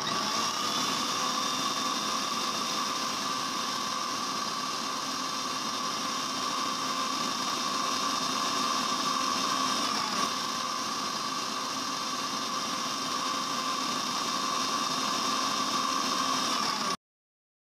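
A Walton electric mixer grinder's motor runs steadily with a constant whine, grinding raisins and nuts in its steel jar, then stops suddenly near the end.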